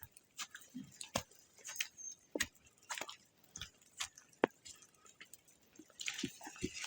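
A hiker's footsteps walking steadily on a snow-free forest trail, about two steps a second, each a short crunch or knock. A brief rustling hiss comes near the end.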